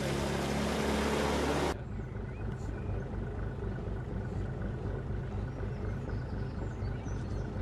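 An inflatable boat's outboard motor running under load with water rushing, cut off abruptly after about two seconds; then a motorboat's engine running slowly with a steady low throb.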